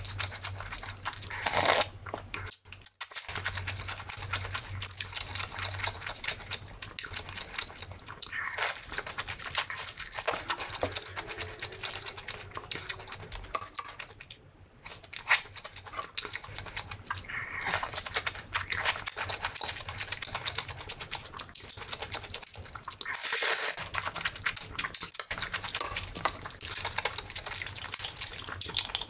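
Close-miked eating: a person chewing udon noodles and a fried shrimp, wet crackly mouth sounds, with louder crunchy bites now and then.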